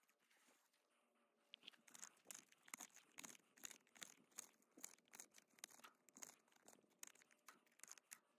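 Faint, quick scratchy clicks, about two or three a second, starting about a second and a half in: nylon trimmer line being wound by hand into a string trimmer's bump-feed head.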